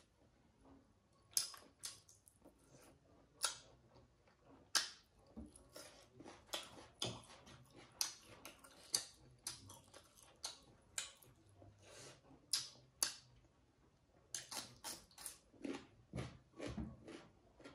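A person eating rice by hand close to the microphone: chewing and wet mouth smacks heard as irregular sharp clicks, a few a second, coming thicker near the end.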